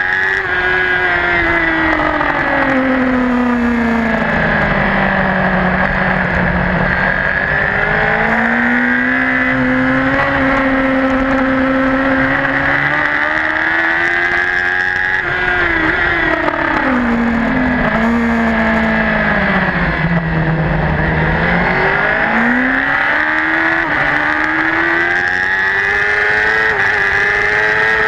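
Racing superbike engine heard from on board at race speed, its revs falling and rising through the corners. Pitch falls over the first few seconds, climbs again, drops in steps about halfway through as it shifts down, then rises steadily near the end, under wind buffeting the microphone.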